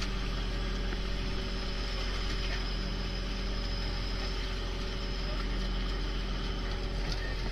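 Fishing boat's engine running steadily, with fish thrashing and splashing in the net hauled up alongside.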